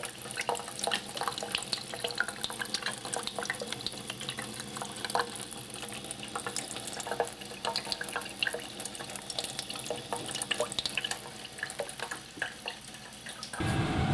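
Water running from a kitchen tap and splashing, with many irregular small splats and drips as a cat drinks from the stream. About half a second before the end it cuts sharply to the louder, steady rumble of a car driving.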